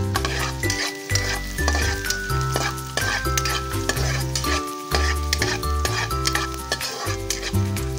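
Garlic and ginger sizzling in hot oil in a wok, stirred and scraped around with a metal spatula. Background music with a steady bass line plays throughout.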